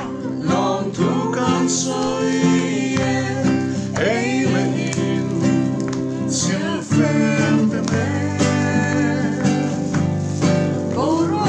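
Acoustic guitar accompanying group singing, with a man's voice leading.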